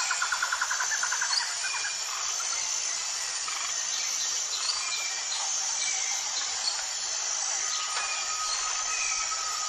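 Outdoor nature ambience: a steady high insect drone with scattered bird chirps. A rapid trill of pulses sounds in the first second and a half, and a thin, steady whistle starts near the end.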